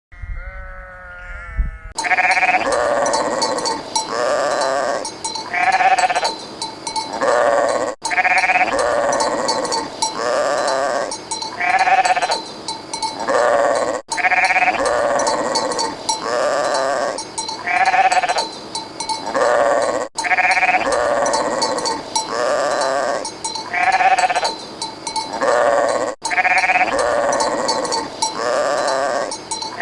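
Sheep bleating: a run of loud, pitched bleats from several animals, in a few-second recording that repeats about every six seconds, after a quieter single bleat at the start.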